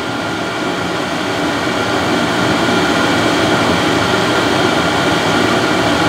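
Vevor diesel air heater running with its blower fan on high, a steady rushing hum with a few faint steady tones, growing slightly louder over the first couple of seconds.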